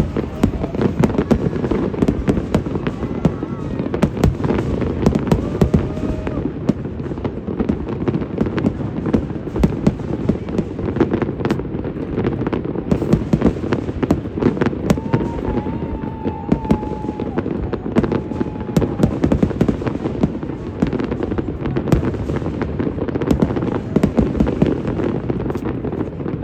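Fireworks going off continuously: a dense stream of sharp cracks and bangs over a steady rumble.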